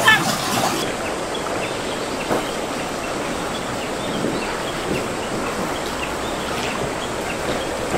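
Shallow, fast river rushing over rocks: a steady rush of water.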